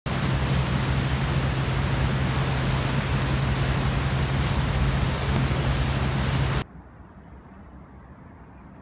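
Boat engine drone, a steady low hum under loud rushing wind on the microphone and the churn of the wake. It cuts off abruptly about six and a half seconds in, leaving quiet outdoor background.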